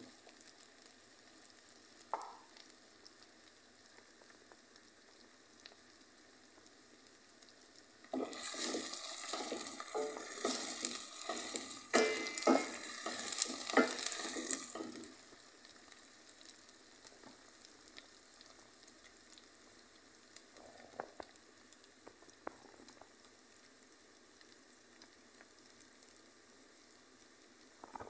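Spices and vegetables frying in oil in a pan, sizzling. From about eight to fifteen seconds in there is a louder stretch of sizzling with the clatter of a spoon stirring, then a quieter steady sizzle.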